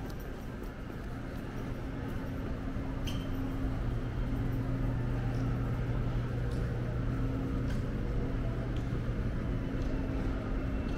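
Steady low mechanical hum, growing louder over the first few seconds and then holding level, with a few faint clicks.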